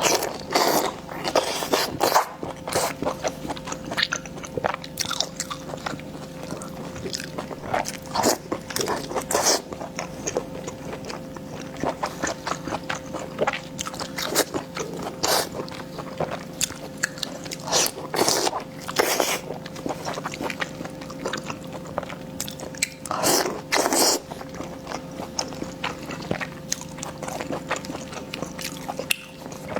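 Close-miked biting and chewing of crunchy food: irregular crisp crunches and wet chewing, with a faint steady hum underneath.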